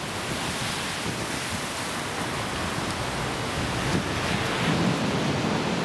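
Heavy storm surf: big waves breaking and rolling in, a steady rush of churning water under a strong southerly wind, swelling slightly toward the end.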